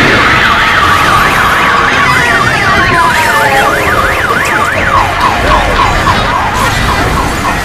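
Emergency-vehicle siren in fast yelp sweeps, pitch going rapidly up and down two or three times a second, switching about five seconds in to a quicker run of short falling warbles, over loud noise.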